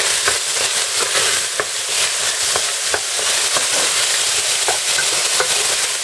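Diced ham, onion and cherry tomatoes sizzling in oil in a stainless steel pan, stirred with a wooden spoon that clicks and scrapes against the pan now and then.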